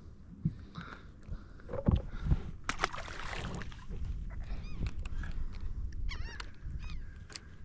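Gulls calling overhead: a series of short, arching, falling calls in quick runs, with a few knocks of gear on the boat in the first couple of seconds.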